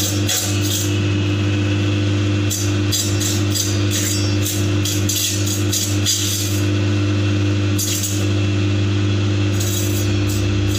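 Electric chicken cutting machine running with a steady motor hum, its stainless-steel blade chopping chicken pieces in a quick, irregular series of crisp cuts with short lulls.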